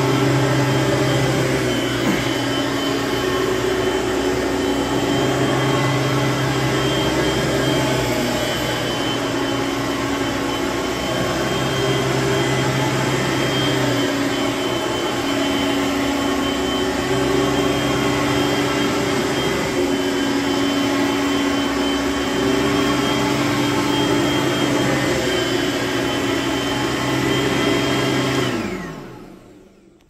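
Hoover Platinum upright vacuum cleaner running on carpet, a steady motor whine whose low hum shifts back and forth in pitch every few seconds. Near the end it is switched off and winds down.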